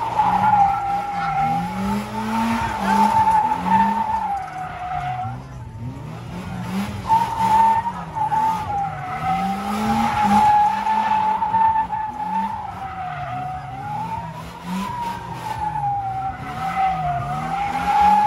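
Polaris Slingshot doing a burnout in circles. Its rear tyre squeals in one long, slightly wavering screech, while the engine revs rise and fall over and over. The squeal breaks off about five and a half seconds in and picks up again a second and a half later.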